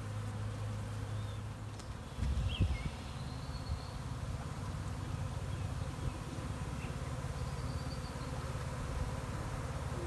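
Honeybee swarm buzzing steadily as it is hived and settles into a hive box. A brief low bump comes about two seconds in.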